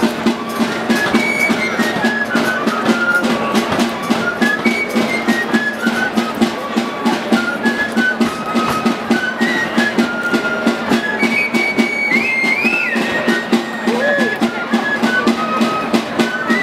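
Basque folk dance music: a high pipe plays short melodic notes over a steady low drone and a fast, even drum beat.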